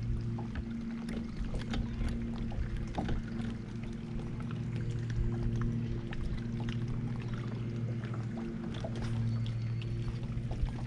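Electric trolling motor humming steadily, easing off briefly a couple of times as it is switched on and off, with light clicks over it.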